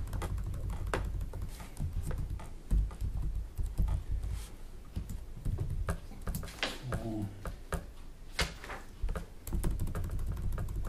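Irregular light clicks and taps with a few low thumps: desk handling noise at a meeting table.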